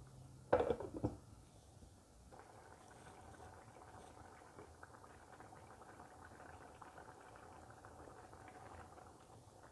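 A glass pot lid clatters briefly as it is lifted off the pot about half a second in. From about two seconds in, the pot of rice and chicken stock bubbles steadily at a rolling boil, with many small pops.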